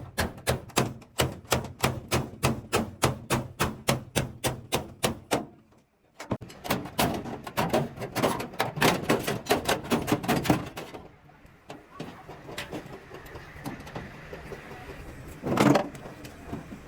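Hammer blows on sheet metal, fast and even at about five a second. After a brief break they come denser and less regular, then quieter, with one loud knock near the end.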